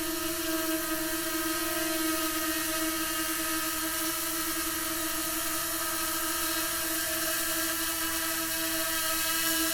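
DJI Mini 2 quadcopter drone hovering, its four propellers and motors giving a steady high-pitched whine with a buzzing hiss.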